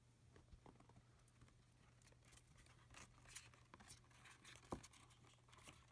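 Near silence: faint scattered clicks and rustles over a low steady hum, the clicks coming more often from about two seconds in.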